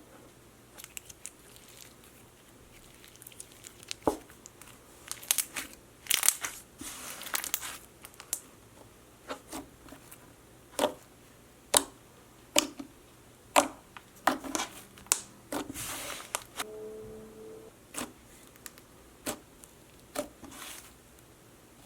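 Slime being squished and stretched by hand, giving irregular sharp popping clicks and short crackly, crinkly bursts, with a brief squeak near the end.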